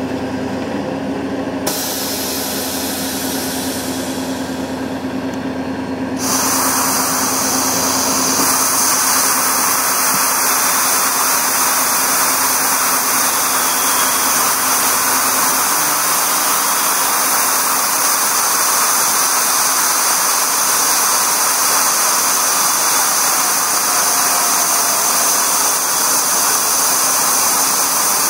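Railking railcar mover's engine running steadily, heard from inside the cab. About six seconds in, a loud steady hiss joins it and continues.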